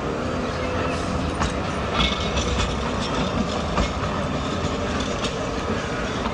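Tram running along street track, a steady rolling noise with scattered sharp clicks of its wheels over the rail joints and points.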